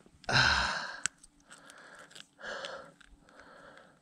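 A person breathing out hard in four short, noisy puffs close to the microphone, the first the loudest, with a sharp click about a second in.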